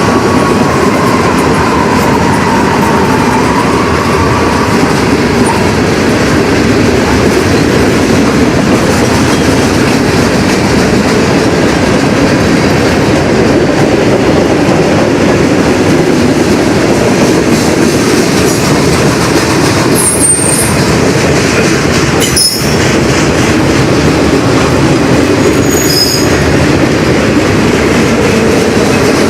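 Freight train rolling past close by: a steady, loud rumble of railcars on the rails, with a few brief high wheel squeals late on.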